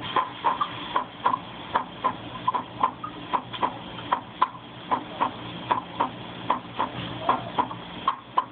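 Recorded normal heart sound: steady lub-dub beats, each a pair of short thuds, just over one beat a second.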